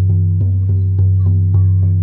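Hand drum beaten in a steady, even rhythm of about three to four strokes a second, its deep boom ringing on between the strokes.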